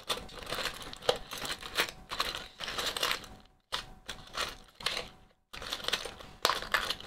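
Small metal trinkets clinking and rattling against each other as hands rummage through a compartmented box of metal odds and ends: a quick, uneven run of clicks and clinks with a couple of brief pauses.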